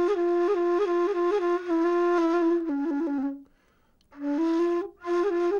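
Solo flute playing a slow melody of long held notes decorated with quick grace-note flicks. It breaks off for a breath about three and a half seconds in, then comes back in on the same note.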